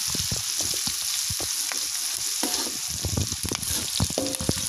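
Sliced shallots, garlic and chillies sizzling in hot oil in a wok, with a metal spatula scraping and knocking against the wok in quick irregular strokes as they are stir-fried.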